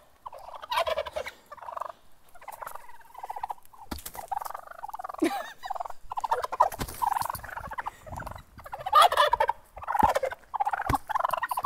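Young male wild turkeys (jakes) gobbling again and again: about ten short warbling calls, one after another.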